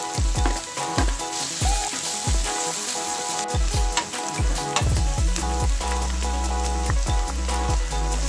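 Chopped onion and garlic sizzling in hot oil in a nonstick wok while being stirred, a steady hiss with a few light clicks. Background music with a steady low beat plays under it.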